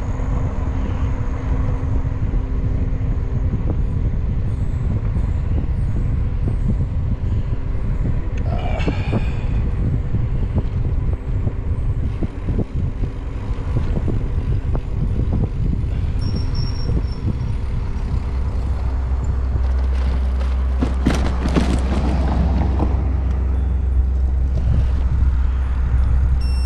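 Wind noise on the microphone of a camera on a moving bicycle: a steady low rush that grows heavier about two-thirds of the way in.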